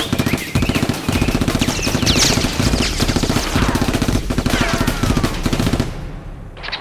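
Rapid automatic gunfire sound effect, one long continuous burst with a few falling whistles mixed in, cutting off about six seconds in.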